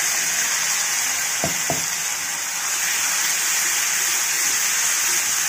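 Wet ground ginger-garlic-green chilli-onion masala paste frying in hot oil in a metal kadhai, a loud steady sizzle. Two quick knocks of the spatula against the pan come about a second and a half in.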